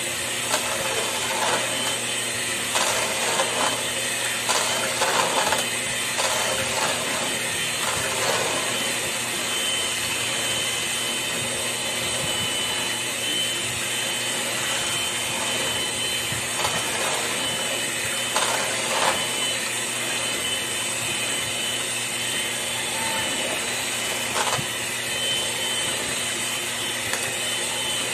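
Electric hand mixer running steadily, its beaters whirring through a liquid egg-and-milk custard mixture in a stainless steel pot. Short knocks and clatters of the beaters against the pot come in clusters through the first several seconds and again twice later.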